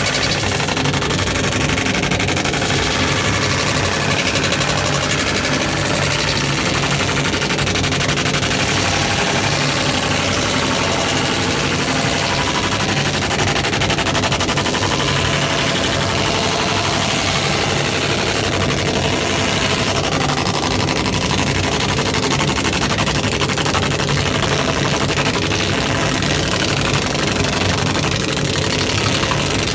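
Industrial laser engraving system running while its beam etches a chalkboard panel: a steady machine hum with low tones under a loud hiss, and a fast, fine crackle throughout.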